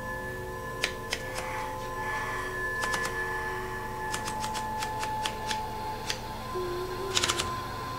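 Manual typewriter keys striking, sharp clacks in irregular runs with a quick flurry near the end, over held music tones.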